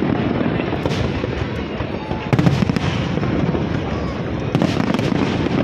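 Aerial fireworks going off in a dense, continuous barrage of crackling and booming bursts. Several sharper bangs stand out: one about a second in, one near the middle and a couple near the end.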